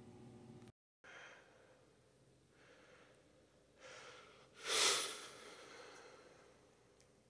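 A person breathing close to the microphone: a few soft breaths, then one loud exhale about five seconds in. A steady hum cuts off abruptly just before the breaths begin.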